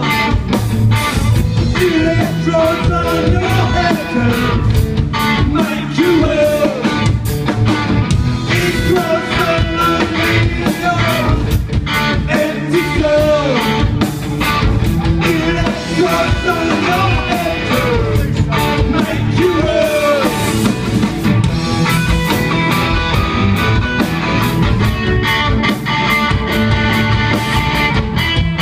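Punk rock band playing live: distorted electric guitars, bass and drums with a man singing over them. The singing stops about twenty seconds in, leaving the guitars and drums playing on.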